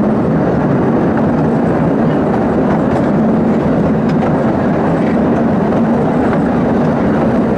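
Theme-park steam train running along its track: a steady rumble of wheels on rails with a few faint clicks.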